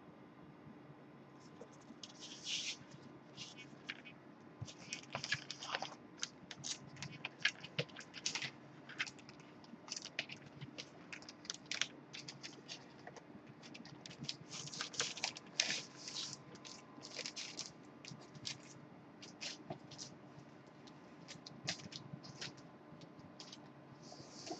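Faint, irregular crinkling and scraping of plastic and cardboard being handled, in scattered clusters of sharp ticks and short rustles: a clear plastic bag and laserdisc jackets being rummaged through.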